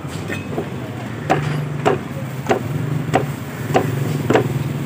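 Large knife chopping through fish onto a round wooden log block, about six sharp chops in an even rhythm of roughly one every 0.6 seconds. A steady low hum runs underneath.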